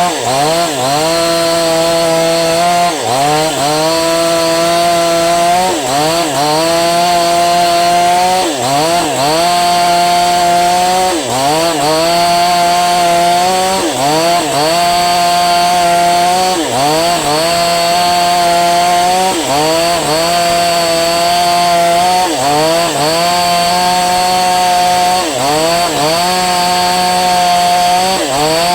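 Falcon Evo 9000 two-stroke petrol chainsaw running at high speed. Its engine pitch dips briefly and climbs back about every two to three seconds.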